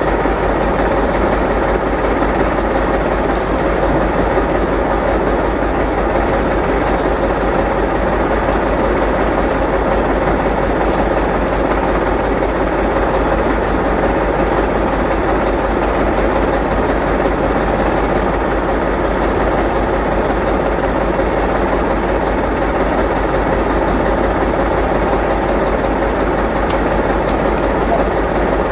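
Heavy engine idling steadily, a continuous low, even running sound with a faint steady hum above it.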